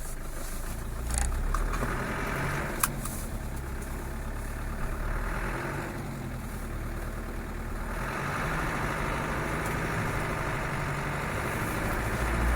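Land Rover Defender 110 driving in snow: steady engine running with tyre and road noise, swelling about a second in and again after about eight seconds, with one sharp click near three seconds.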